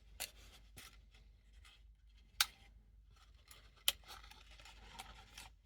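Handling noise: a few light, sharp clicks, the loudest about two and a half seconds in, over soft rustling as a small HO scale model locomotive is picked up and turned over.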